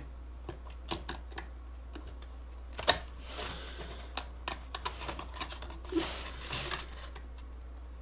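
Light clicks, taps and scrapes of hands handling and fitting together painted foam model pieces, with one sharper tap about three seconds in, over a faint steady low hum.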